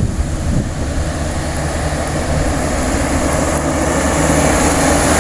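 Diesel truck engine running steadily, growing louder over the few seconds as the truck comes closer.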